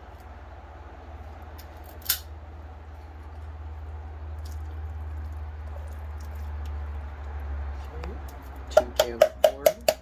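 Corn being tipped out of a tin can into the cooking pot, ending with about six quick hand taps on the bottom of the can near the end to knock the last kernels out, each tap with a short ring. A low rumble runs underneath.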